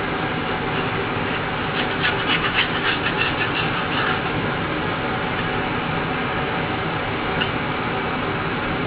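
Steady mechanical hum throughout, with a run of quick scratching strokes from about two to four seconds in as fingers pick old foam-surround remnants off the metal rim of a JBL woofer basket, and a single click near the end.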